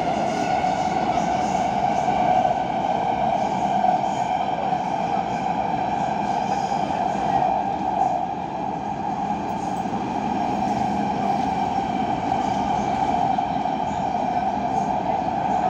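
Siemens Inspiro metro train running through the tunnel, heard from inside the car: a steady rushing rumble of wheels and running gear, with a high electric whine that fades over the first few seconds.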